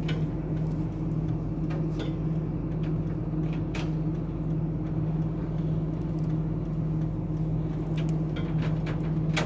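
Tow truck's engine idling with a steady low hum while stationary, heard from inside the cab of the truck loaded on its flatbed, with a few faint clicks.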